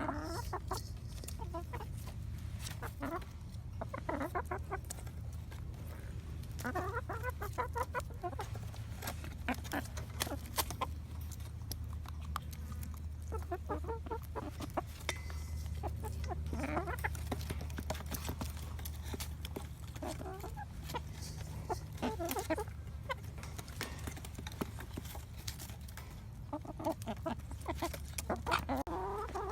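Chickens clucking in short bursts every few seconds, over a steady low rumble.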